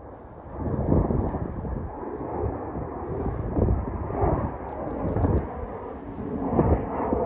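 Jet engine noise from a business jet climbing out after takeoff: a rough, fluctuating rumble that grows louder about a second in.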